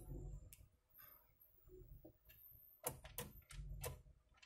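Faint, scattered clicks of a screwdriver turning out screws from the plastic housing of an HP DeskJet GT 5821 printer's scanner unit, with several clicks close together near the end.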